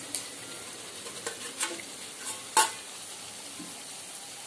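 Raw chicken pieces sizzling in onion-tomato masala in a steel kadhai, with the occasional scrape and knock of a metal spatula against the pan. The loudest knock comes about two and a half seconds in.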